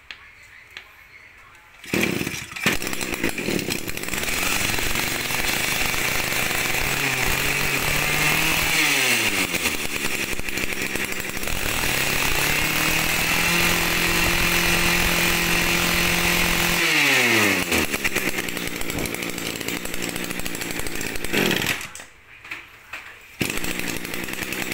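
Mitsubishi TU26 two-stroke brushcutter engine starts up about two seconds in, after its fuel primer has been pressed. It is revved up twice, held at high speed for a few seconds each time, and let back down to idle. Near the end it drops out briefly, then runs again.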